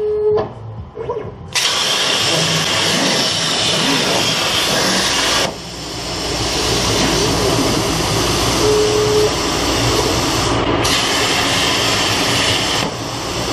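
CNC plasma cutter torch arc firing about a second and a half in and cutting sheet metal with a loud, steady hiss. The hiss dips briefly about four seconds later and again near the end.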